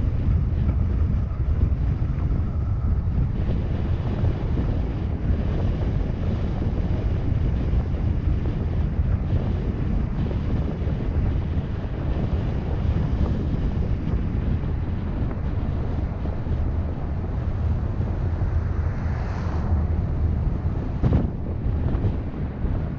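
Wind buffeting a GoPro's microphone on a moving car, a steady low rumble of wind and road noise. A single sharp click comes near the end.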